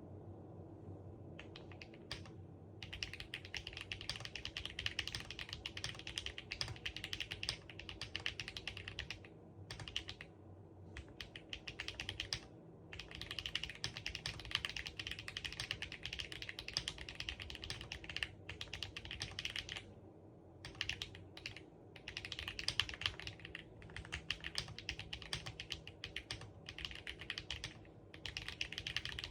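Fast typing on an SPM AL66A mechanical keyboard with HMX Martini switches and BCKeys keycaps. The switches are very clacky. It comes in runs of rapid keystrokes several seconds long, separated by brief pauses.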